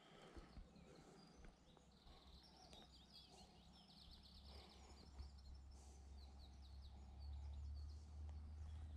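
Faint birdsong, a run of quick chirps and trills from about two and a half seconds in to about six, over a low steady rumble that grows a little louder in the second half.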